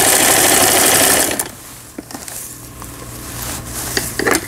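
Lion (Janome) Line 17 household sewing machine running fast, stitching through fabric, with its broken gearbox freshly replaced. It stops abruptly about a second and a half in. After that a low steady hum remains, with a few light clicks.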